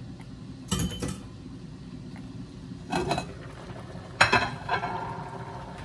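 Metal pots and utensils clanking as they are handled: three knocks, about a second in, at three seconds, and the loudest just after four seconds, which rings briefly.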